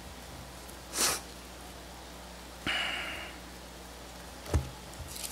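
Pages of a Bible being turned by hand: a few short, soft rustles, with a light thump near the end.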